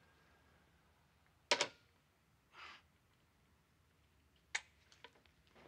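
Corded telephone handset being put down and hung up: a sharp clack about a second and a half in, a short rustle, then another click and a few lighter ticks near the end.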